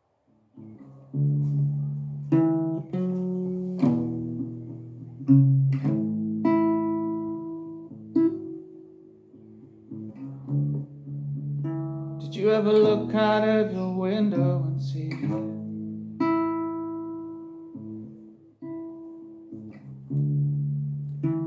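Cort acoustic guitar played by hand, chords picked and left to ring, starting about half a second in. A man's voice sings briefly about halfway through.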